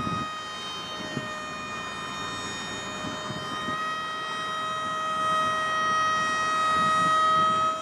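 A steady high-pitched whine with overtones, held without a break, over an uneven low rumble.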